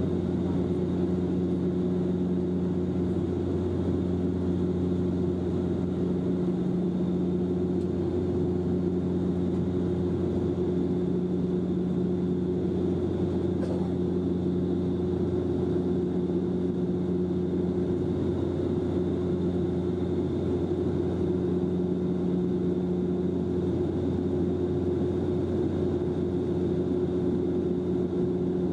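Cabin drone of a Bombardier Dash-8 Q400 turboprop airliner in the climb, heard from inside the passenger cabin: its two turboprop engines and propellers give a steady low hum of a few even tones over a constant hiss.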